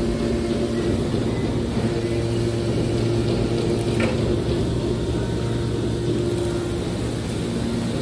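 Hydraulic power unit of a scrap metal baler running with a steady hum while the ram pushes a compressed bale of metal shavings out of the chamber.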